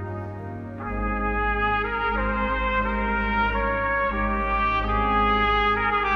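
Trumpet playing a slow melody in held notes that change about once a second, over steady deep organ notes.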